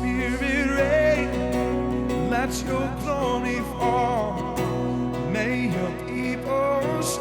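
Live contemporary worship song played by a band: sustained chords, a held low bass and acoustic guitar, with a wavering melody line over them.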